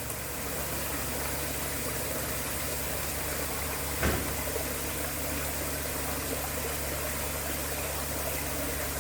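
Water splashing down an artificial waterfall over the steady hum of an electric pump, with a brief knock about four seconds in.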